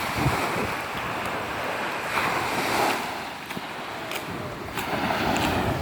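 Sea waves washing onto a beach, the surf swelling about two seconds in and again near the end, with some wind on the microphone.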